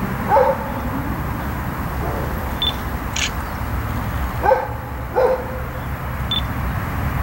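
Amtrak GE Genesis diesel locomotive rumbling low and steady as it approaches under power. A dog barks three times, once near the start and twice in quick succession a little past the middle.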